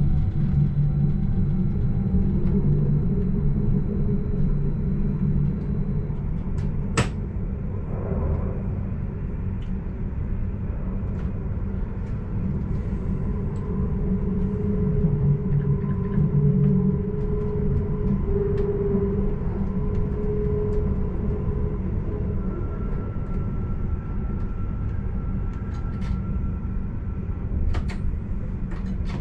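Stadler RABe 515 electric multiple unit running at speed: a steady rumble of wheels on rail with a few faint steady tones over it, and one sharp click about seven seconds in.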